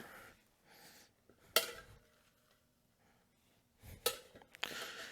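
A few sharp metallic clinks and knocks from handling the wheel and tire-mounting tools, one about one and a half seconds in and another about four seconds in, followed by a short scuffing rustle near the end.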